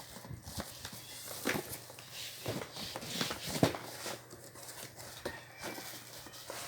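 Rummaging through a box of plastic vacuum-cleaner parts and packaging: scattered light knocks, taps and rustles, with one sharper knock about three and a half seconds in.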